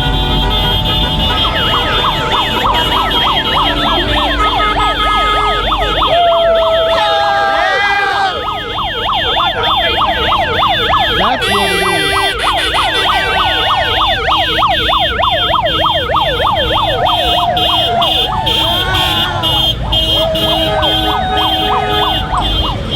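Vehicle sirens sounding in a fast rising-and-falling yelp, several overlapping, with car horns giving held blasts now and then and voices shouting underneath.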